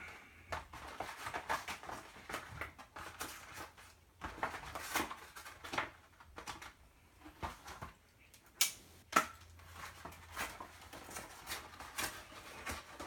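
A USPS Priority Mail envelope being cut and torn open by hand, with irregular crinkling, rustling and crackling of the mailer, and a couple of sharper rips about two-thirds of the way through.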